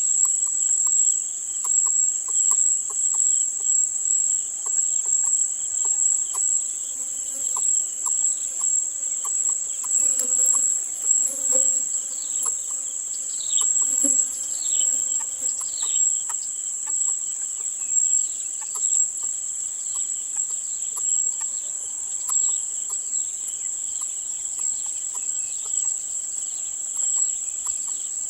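Steady high-pitched insect chorus running without a break, with repeated short falling bird chirps over it, busiest in the middle, and a few lower calls in the middle as well.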